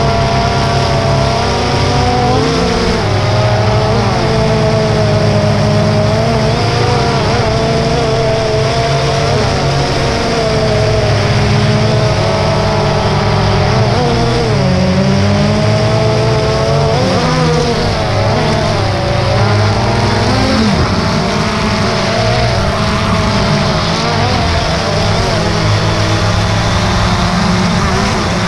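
DJI Phantom 2 quadcopter's electric motors and propellers whining steadily, heard from the camera mounted on the drone. The pitch wavers up and down repeatedly as the throttle changes in flight.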